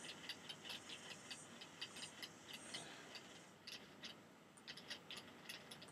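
Faint clicking of a computer keyboard and mouse, several quick clicks a second, thinning out after about three and a half seconds.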